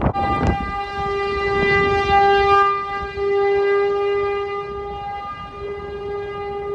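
Outdoor tornado warning siren sounding a steady, unwavering tone that swells and fades in loudness, a tornado warning alert.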